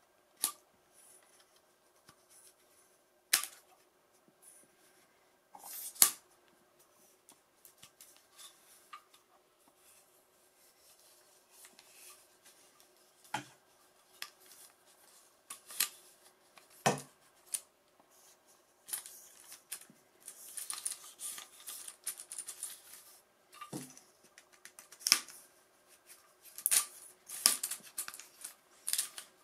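Small aluminium telescopic tripod being handled: sharp clicks and snaps from its plastic leg locks and hinges, and metal tubes sliding and knocking as the legs are extended and folded. The clicks come singly and scattered, with a spell of busier rubbing and rattling about two-thirds of the way through.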